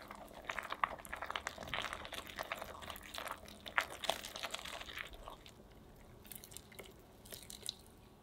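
Wire whisk beating cocoa powder, flour, eggs and milk into chocolate crepe batter in a glass measuring jug: rapid scraping and clicking of the wires against the glass. After about five seconds it gets quieter, with only a few sparse taps, as the batter turns smooth.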